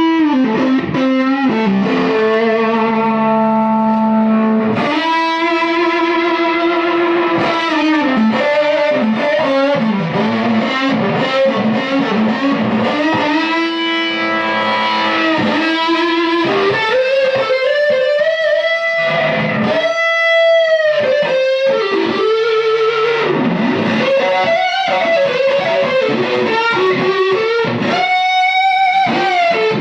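Electric guitar, a 1967 Fender Stratocaster, played through an original late-1960s Dallas Arbiter Fuzz Face pedal into a Marshall JTM45 amp: single-note lead lines with held notes, string bends and vibrato, in a lightly distorted fuzz tone.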